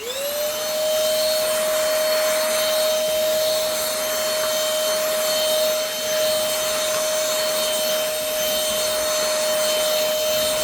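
Cordless vacuum cleaner powered by a DeWalt 20V battery, its motor spinning up quickly as it is switched on, then running steadily with an even whine over the rush of suction air.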